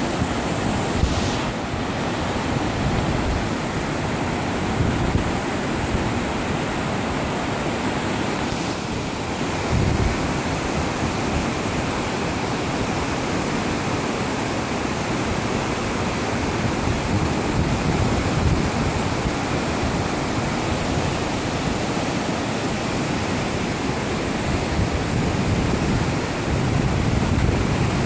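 Budhi Gandaki river rushing through white-water rapids, a steady noise of fast water, with wind buffeting the microphone now and then.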